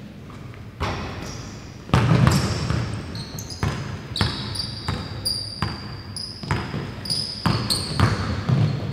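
A basketball being dribbled on a hardwood gym floor, bouncing about twice a second from about two seconds in. Basketball sneakers squeal on the floor again and again in short, high-pitched squeaks.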